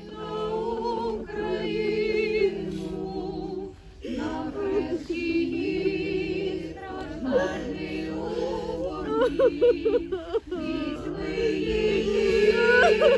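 A choir singing slowly and unaccompanied, several voices holding long notes over a sustained low note, with short breaks between phrases.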